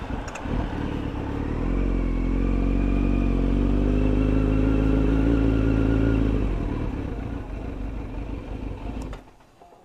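Kawasaki Z900's inline-four engine running at low revs as the bike rolls slowly, then shut off suddenly near the end.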